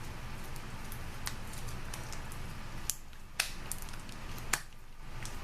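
Sticky Play-Doh popcorn slime being squeezed and stretched in the hands, with about five sharp clicks and pops as it pulls apart and peels off the fingers.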